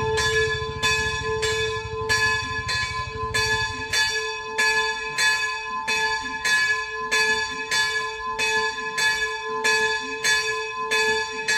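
Church bell rung by pulling its rope, struck steadily about three times every two seconds, each stroke ringing on into the next.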